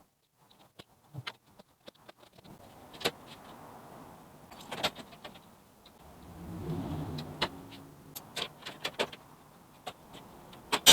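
Scattered light clicks and knocks of tools and metal parts being handled, with a brief low hum about six seconds in.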